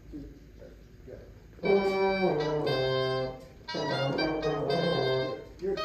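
French horn and oboe playing two short phrases together, each about two seconds of held and stepping notes, with a brief break between them.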